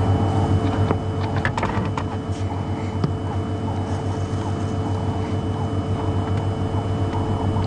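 Game-drive vehicle's engine running steadily with a low hum.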